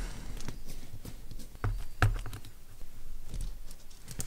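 Small metal parts of a miniature RC portal axle clicking and ticking as they are handled and the outer axle shafts are pulled out of the differential housing: a scatter of light clicks, a few sharper ones about two seconds in.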